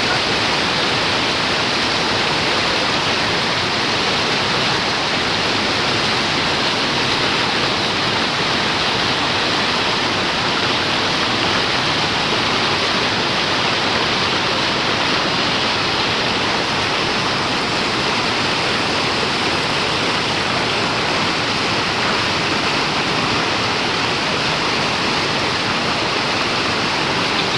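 Manavgat Waterfall, a broad river waterfall, rushing steadily.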